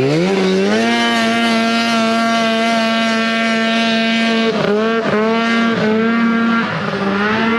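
Off-road buggy engine revving hard, climbing quickly in pitch, then holding high revs. About four and a half seconds in, the revs drop and recover in quick dips, as with throttle lifts or gear changes.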